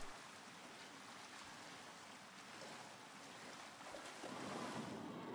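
Faint pool water lapping and sloshing as a swimmer moves just under the surface, a little louder about four seconds in.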